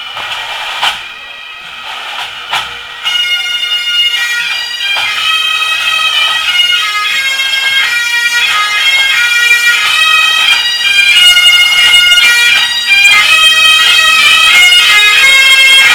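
Highland pipe band: the bagpipes' steady drones with a few drum strokes, then about three seconds in the chanters strike up the tune over the drones. The sound grows steadily louder as the band marches nearer.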